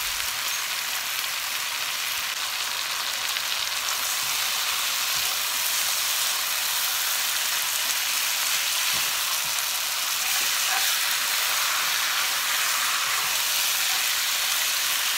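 Chicken pieces and sliced onions frying in oil in a nonstick pan: a steady sizzle as the chicken is seared before the coconut milk goes in, turned now and then with a silicone spatula.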